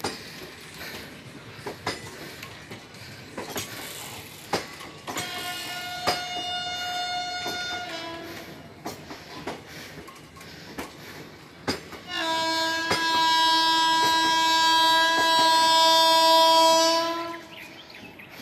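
Coaches of an Indian Railways passenger train rolling past with clicks from wheels over rail joints. A WAP-7 electric locomotive's horn sounds twice: a fainter blast of about three seconds, then a louder, longer one of about five seconds, about twelve seconds in.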